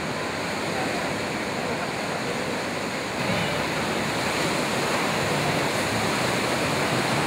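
Ocean surf: waves breaking and washing in, a steady rushing noise that grows a little louder about three seconds in.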